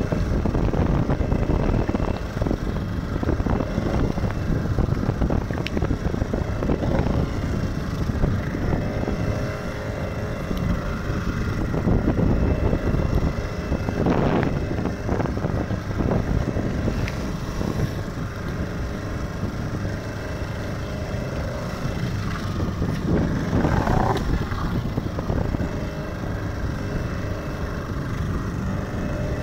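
Fishing boat's engine running steadily, mixed with wind buffeting the microphone and water rushing along the hull. Two louder swishes of water or spray stand out, one about halfway through and one a little before the end.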